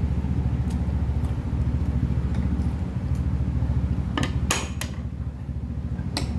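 A steady low mechanical hum, with metal chopsticks and a spoon clinking against dishes and a stainless steel rice bowl: three quick clinks about four seconds in and one more near the end.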